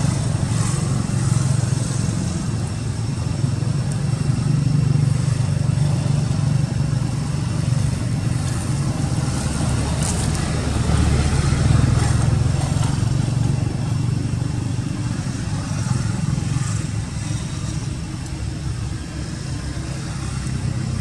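Steady low rumble of road traffic, swelling and easing a little as vehicles pass.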